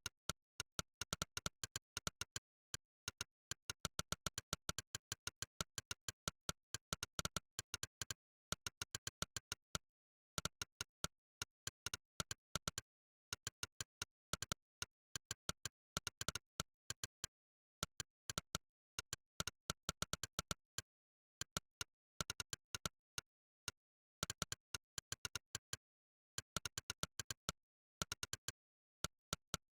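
Monkeytype's synthesized "click" keypress sound, one sharp click per keystroke in fast runs of typing. Several clicks a second, broken now and then by brief pauses of dead silence between words or bursts.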